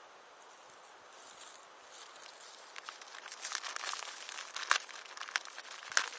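Wood campfire crackling, growing busier about three seconds in with a dense run of small crackles and a few sharp pops, the loudest two near the end.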